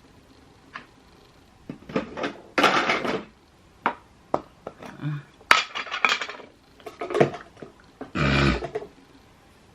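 Makeup containers and tools clicking, tapping and clattering on a hard surface as setting powder is applied for baking, in short separate knocks. Near the end comes one loud sneeze, set off by allergies.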